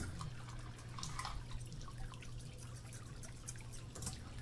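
Scattered light clicks and taps over a steady low hum, with a sharp knock right at the start.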